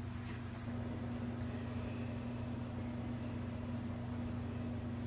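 A steady low hum with an even background hiss, unchanging throughout.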